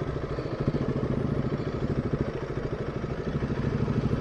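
Motorcycle engine running near idle with a steady, even pulse as the bike rolls slowly to a stop.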